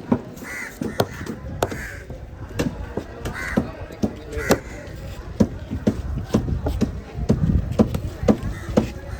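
Fish being cut at a market stall: repeated sharp, irregular chopping knocks of a blade through fish onto a cutting surface. Crows caw about four times in the first half.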